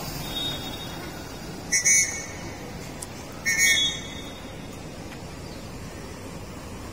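Two short, loud whistle blasts, a little under two seconds apart, over a steady low background rumble.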